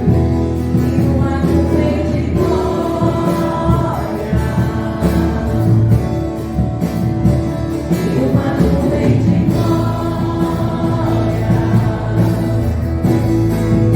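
Gospel worship music: several voices singing held notes together over a band with bass and drums.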